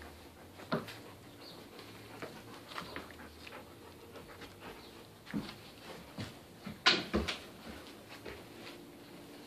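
Golden retriever puppy panting while it plays with a plush toy, with scattered short knocks and bumps. The loudest is a sharp knock about seven seconds in.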